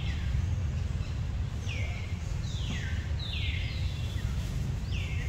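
A bird calling over and over, each call a short note sliding downward, about once a second, over a steady low rumble.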